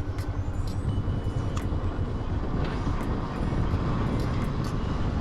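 Steady low rumble of a motorcycle ride: engine and wind buffeting the microphone, with a few faint clicks.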